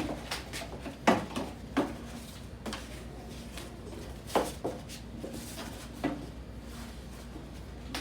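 Several light knocks and taps, scattered and irregular, the loudest about a second in, over a faint steady low hum: small handling noises in a small room.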